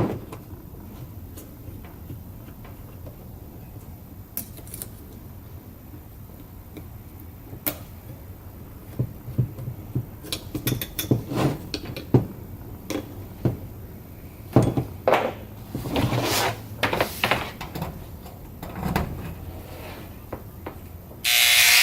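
Scattered clicks and knocks of the blade being fitted back onto a Dremel Multi-Max MM30 oscillating multi-tool. Near the end the tool switches on and runs, a sign that the repaired switch is working.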